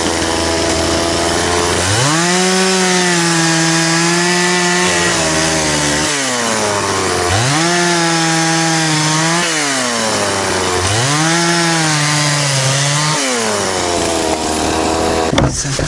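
Small chainsaw idling, then revved up three times, each for two to three seconds, as it cuts through a wooden log, dropping back to idle between cuts.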